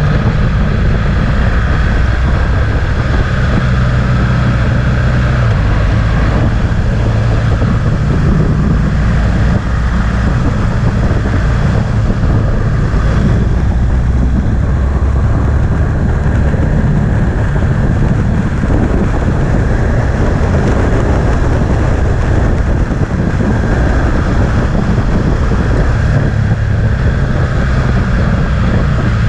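Motorcycle engine running at road speed, with heavy wind noise on the microphone. The engine note rises and falls a few times as the revs change through the bends.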